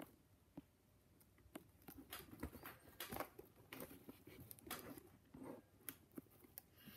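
Faint, scattered small clicks and light scratching of lock-picking tools being handled and worked into a padlock's keyway.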